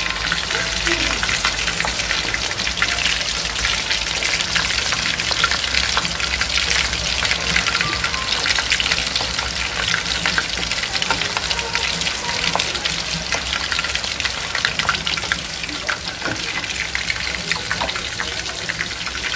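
Batter-coated shrimp deep-frying in hot oil in a wok: a dense, steady sizzle full of fine crackles, over a low steady hum.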